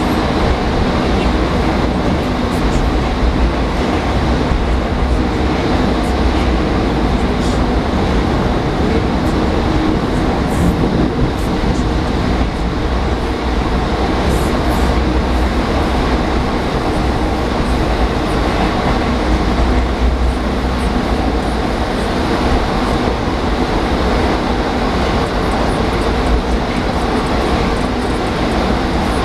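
81-740 Rusich metro train running at speed between stations, heard from inside the car: a steady, loud rumble of wheels on rail with a few faint clicks.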